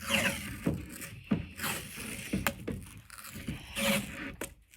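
Tape being pulled off the roll, wrapped around a hockey stick blade and smoothed down by hand: several short scraping peels with rubbing in between.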